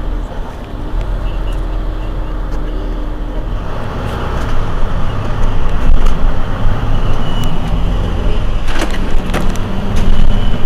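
Mercedes-Benz Citaro C2 city bus's diesel engine running at standstill, growing louder about four seconds in. A few sharp clicks come near the end.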